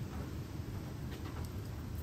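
Wood fire burning in a stone fireplace, with a few faint crackles over a steady low rumble.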